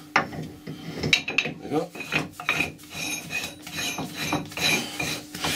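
A heavy steel chuck being worked onto a metal lathe's spindle nose by hand, with repeated metal-on-metal scraping and irregular clicks and knocks as it is lined up and seated.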